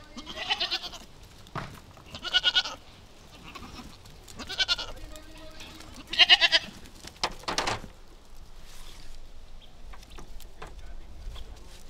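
Goats bleating: about five loud, wavering bleats in the first eight seconds, the last two close together, then only a few faint clicks.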